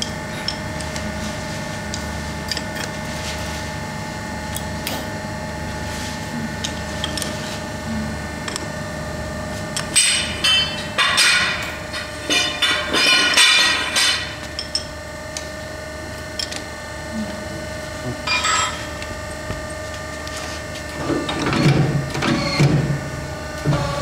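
Hydraulic pipe bending machine running with a steady hum. From about ten to fourteen seconds in comes a burst of metal clattering as the tube clamp and die block are worked by hand, then a single click a few seconds later.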